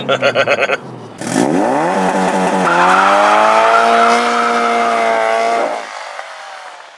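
Subaru BRZ's 2.0-litre flat-four stuttering rapidly against the launch-control rev limiter, then launching hard after a short break: the revs climb, drop at a gearshift, climb again and fade as the car pulls away.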